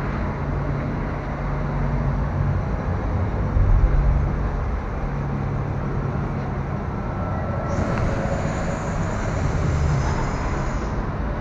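Tour tram rolling along with a steady low rumble and hum. About two-thirds of the way through, a steady hiss starts and then stops just before the end.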